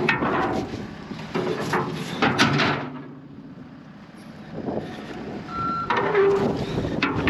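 Loader engine running and surging in loud bursts while it is driven onto a truck, with sharp knocks of metal.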